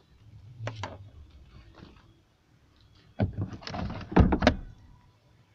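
Plastic interior car trim being handled as wiring is pushed in behind it: two short clicks about a second in, then a cluster of knocks and scraping about three seconds in, loudest near the end of the cluster.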